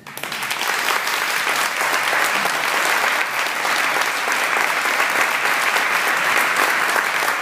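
Audience applauding; the clapping swells up within the first second and then holds steady.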